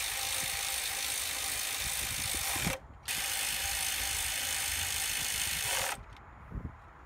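Cordless electric ratchet whirring as it runs a bolt down, in two runs of about three seconds each with a short pause between them.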